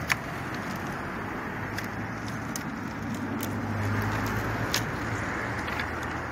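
Steady road traffic, one vehicle's hum swelling past around the middle. Over it come scattered sharp clicks and knocks of willow rods being handled and woven between wooden stakes, the loudest click right at the start.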